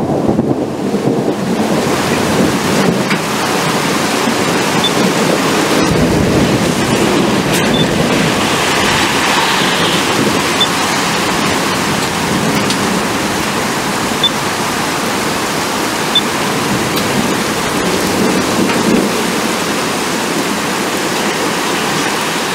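Heavy rain falling steadily in a thunderstorm, with a low rumble of thunder underneath.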